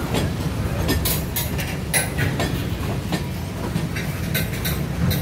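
Freight cars of a manifest train rolling past: a steady low rumble with sharp, irregular clicks of the steel wheels on the rails, about seven in a few seconds.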